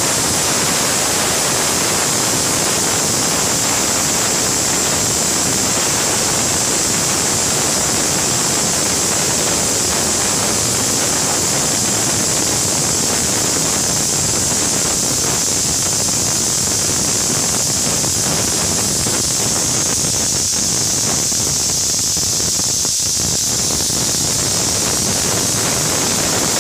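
Stovetop pressure cooker whistling: steam escaping under pressure past its weighted vent in a loud, steady, high hiss that cuts off abruptly at the end. The whistle is the sign that the cooker has reached full pressure and is counted to time the cooking.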